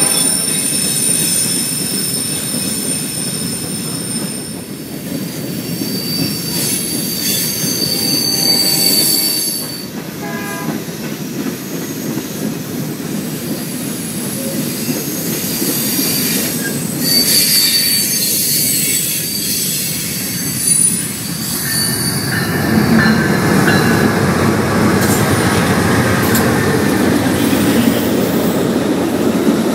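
CSX freight train's hopper cars rolling past with a steady rumble and high-pitched wheel squeal that comes and goes, a horn dying away right at the start. From about two-thirds of the way in, an Amtrak Superliner passenger train passes close by with a louder, fuller rumble.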